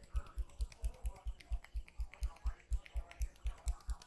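Massage percussion: a barber's hands striking the body in a fast, even rhythm, about four to five dull thumps a second, with light clicking among them.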